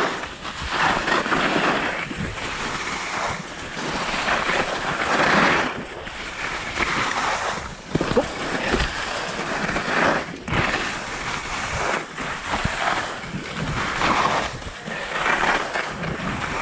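Skis scraping across firm groomed snow through linked turns, the hiss swelling with each turn about every second and a half, mixed with wind buffeting the action camera's microphone.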